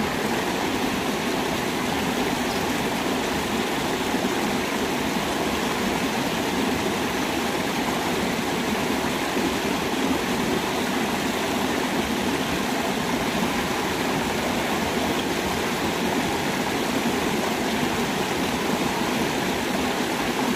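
Steady, unbroken sound of water flowing in a small stream.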